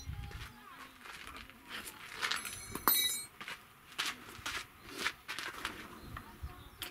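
Scattered knocks and clinks of a hammer on metal tent pegs as the tent is struck, with one ringing metal-on-metal clang about three seconds in. Footsteps on gravel between the strikes.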